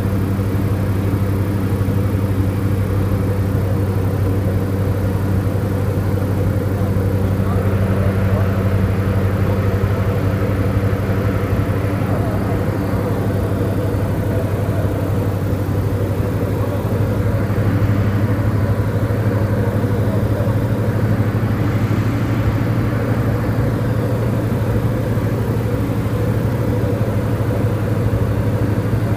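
Diamond DA40 light aircraft's piston engine and propeller droning steadily in flight, heard inside the cabin: a strong low hum with a hiss of rushing air above it.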